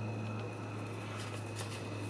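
Steady low electrical hum with a faint high whine over quiet room noise, and a couple of faint small clicks about a second and a half in.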